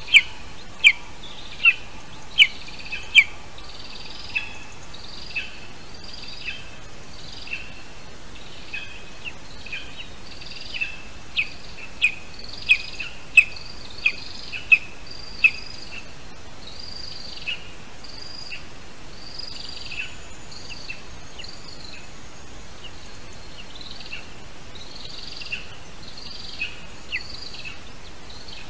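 Downy raptor nestling calling: a run of short, high-pitched peeps, about one or two a second, loudest near the start and again around the middle, fainter in between, over a steady background hiss.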